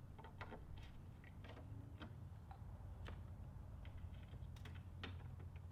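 Faint, irregular small clicks and taps of hand assembly work on a flat-pack wardrobe panel, over a low steady hum.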